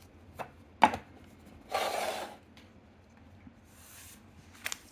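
Handling noises from unpacking a small fidget toy: two sharp clicks as parts are set down or handled, then a short rustling scrape of packaging about two seconds in, and a few light clicks near the end.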